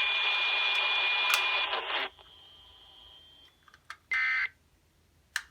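Hissy, noisy radio-relay audio of an Emergency Alert System broadcast with a thin steady tone running through it, cutting off abruptly about two seconds in. A faint hum follows, then a short electronic beep a couple of seconds later.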